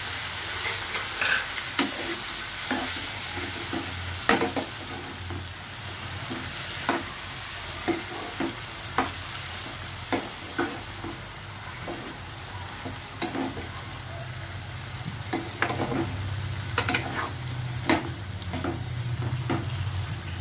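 Diced potatoes sizzling in oil in a kadai while a metal ladle stirs them, knocking and scraping against the pan with sharp clicks every second or so.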